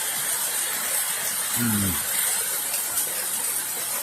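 Heavy rain falling, a steady hiss of rain and running runoff water. A man gives a short low hum about a second and a half in.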